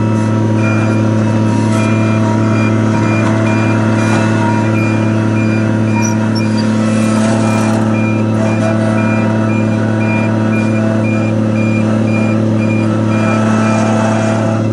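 Rented skid steer's diesel engine running steadily while its reversing alarm beeps about twice a second, stopping shortly before the end: the machine is backing up.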